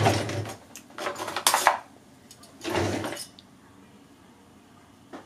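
A wooden kitchen drawer sliding open and metal utensils clattering inside it as a bread lame is picked out: three short bursts in the first three seconds, the middle one a bright rattle.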